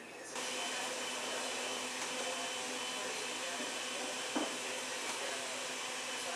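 Steady rushing, machine-like noise that switches on abruptly just after the start and holds level, with a faint whine in it; a single light knock about four seconds in.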